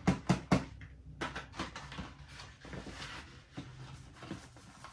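Clear plastic moss pole and loose moss being handled: a quick run of sharp plastic clicks and taps in the first half-second, then lighter crackling and rustling as the moss is pulled out and the tube is moved.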